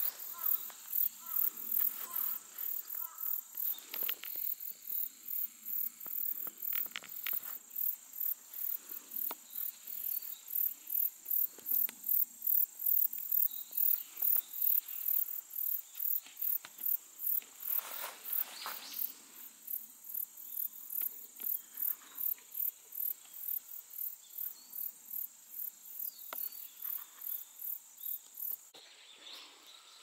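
Crickets and other insects chirping in grass: a steady high trill with a sharper chirp repeating about twice a second. Both drop out shortly before the end.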